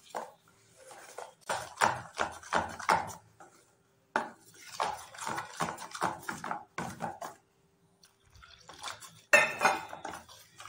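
A metal spoon beating besan (gram-flour) batter in a stainless steel bowl: quick, rapid clinks and scrapes of the spoon against the bowl, in three spells with short pauses between. The batter is being whisked smooth and lump-free after a little more water has gone in.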